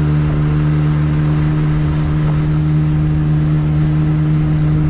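Outboard motor on a small fishing boat running under way at a steady cruising speed, a constant even-pitched drone over the rush of the wake and wind.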